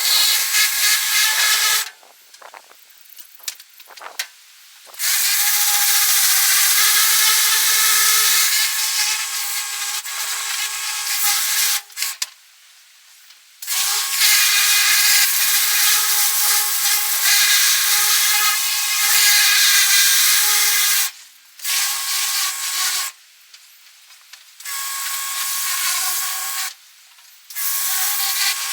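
Handheld power tool running in stretches of several seconds with short pauses, a steady whine under a harsh hiss as it works against a surface; about five runs, the longest about seven seconds each.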